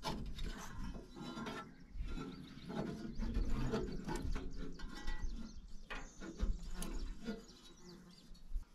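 A new drive belt being worked by hand onto the pulleys of a stopped Caterpillar 3304 diesel engine: irregular rubbing, scraping and clicking of rubber on metal.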